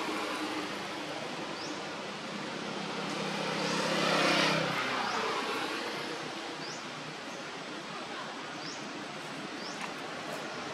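Outdoor ambience with a motor vehicle passing at a distance: an engine hum that swells to a peak about four seconds in and then fades. Short high chirps repeat every second or so.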